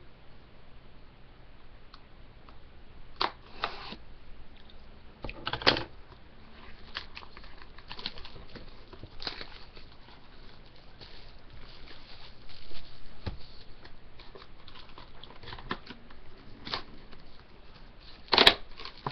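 A sealed box of hockey cards being opened and handled: plastic wrap crinkling and cardboard rustling, with scattered crackles and a few sharper knocks, the loudest near the end.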